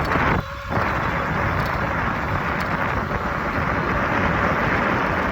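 Steady rushing wind noise on the microphone while riding an e-bike fast in top gear, with a brief dip about half a second in.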